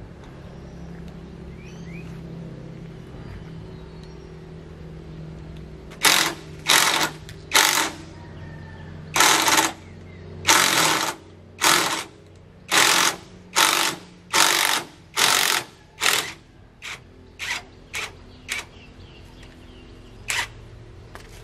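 Impact wrench on the bolts of a tractor's rotary tiller blades, driven in about fifteen short bursts of rattling hammering, the later ones briefer, with one more burst near the end. A low steady hum runs underneath.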